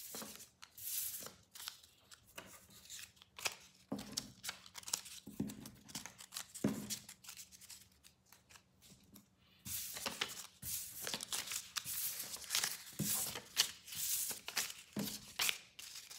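Paper cards being picked up and slid off a wooden tabletop: a string of light scrapes, rustles and taps, busier in the second half.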